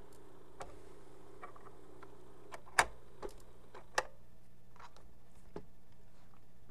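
Silent stretch of a vinyl record's groove: steady low hum with scattered surface clicks and pops, two sharper pops about three and four seconds in.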